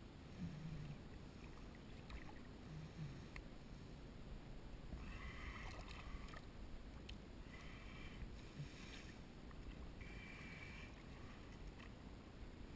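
Shallow water lapping around a wading angler, with a few short splashes as a small fish is handled and let back into the water.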